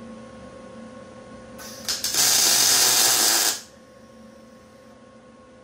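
MIG welding: a couple of brief sputters as the arc strikes, then about a second and a half of loud, steady arc crackle before it stops, over a steady hum.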